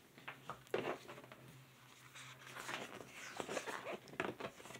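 Faint, irregular rustles and light clicks of a paper instruction booklet being handled and its pages turned.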